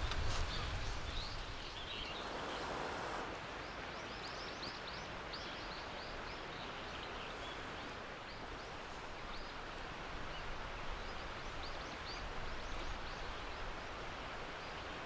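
Small birds chirping, many short high calls scattered over a steady outdoor background hiss. A brief rustle about two seconds in.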